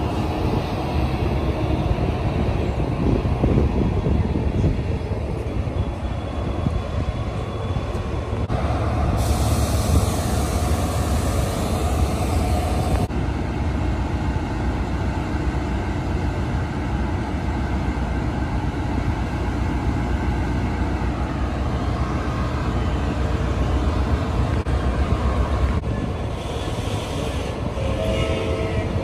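Siemens Charger SC-44 diesel-electric locomotive standing at the platform with its engine running, a steady deep rumble. A hiss sits over it for a few seconds partway through.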